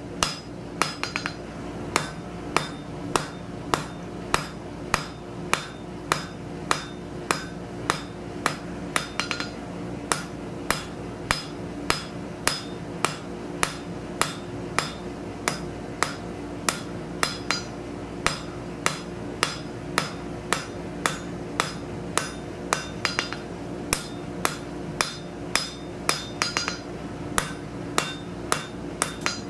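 Hand hammer striking a red-hot steel bar on an anvil, about two blows a second with a short ring after each, drawing out an asymmetrical taper. A coke forge's blower runs steadily underneath.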